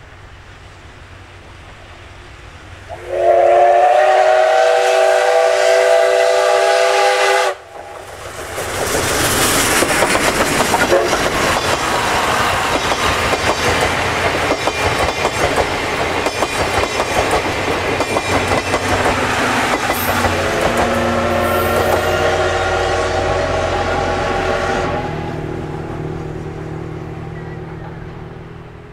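Steam locomotive D51 498's whistle blows a steady chord for about four seconds and cuts off suddenly. Then its passenger coaches roll past close by with wheels clattering over the rail joints. A fainter whistle-like tone sounds over the clatter near the end, and the train fades as it moves away.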